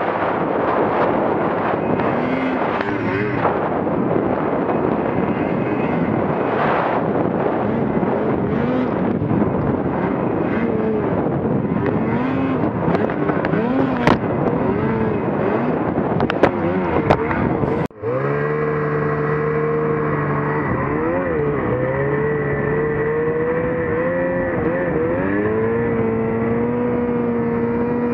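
Snowmobile engine running hard through deep snow, its pitch rising and falling repeatedly as the throttle is worked. It cuts out briefly about two-thirds through and comes back with a steadier note that steps up in pitch near the end.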